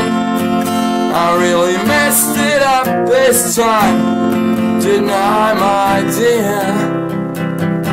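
Steel-string acoustic guitar with a capo, strummed in a steady rhythm, with a man singing over it.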